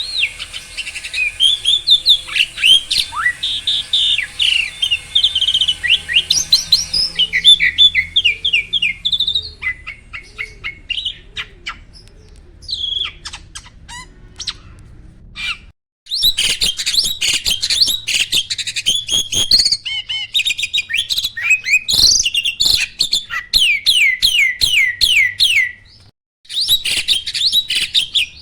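A caged starling singing a fast, varied stream of chirps, whistles and harsh squawky notes. The song breaks off briefly twice.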